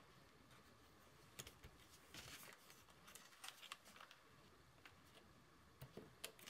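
Near silence, broken by a few faint rustles and light taps of hands handling small pieces of paper on a card.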